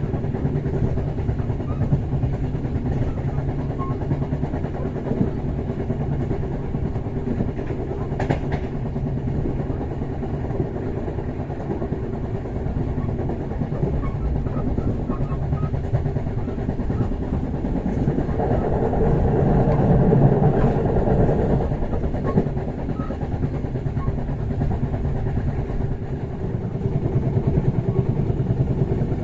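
Bengawan passenger train running, heard from inside the carriage: a steady low rumble and rattle of the wheels on the rails, swelling louder for a few seconds about two-thirds of the way through.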